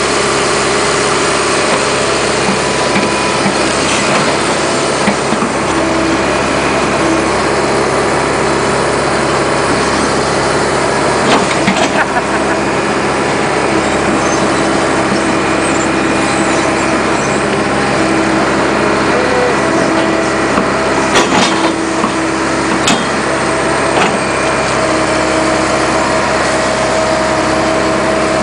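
Cat 215 excavator's diesel engine running steadily under load as the boom and bucket work, its hydraulics adding steady tones that shift as the arm moves. A few sharp knocks come about midway and again later.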